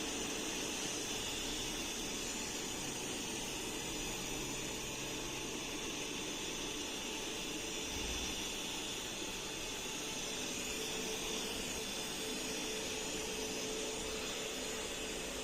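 Xiaomi X20 Pro robot vacuum running: a steady whir of its suction fan with a faint high whine.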